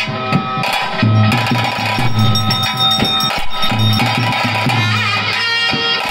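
Music with a strummed guitar over drums and a deep, pulsing bass line.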